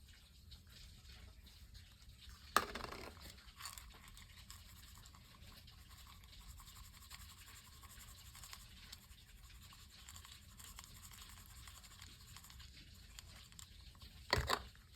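Faint scratching and handling sounds of objects on a table, with two sharp knocks: one about two and a half seconds in and one near the end.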